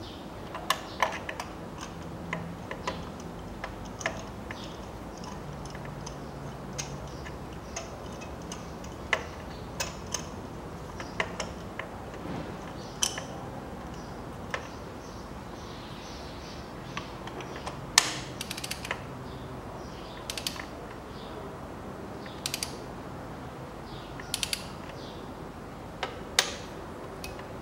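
Hand ratchet and torque wrench working spark plugs down through a socket extension: scattered sharp clicks and short runs of ratchet ticking, with the odd clink of the metal tools.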